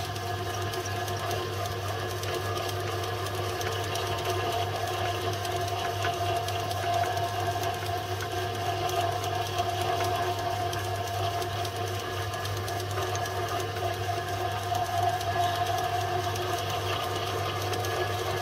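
Home-built Gingery milling machine running steadily as its end mill cuts a flat on the hub of a small metal V pulley, with a steady hum and an even whine.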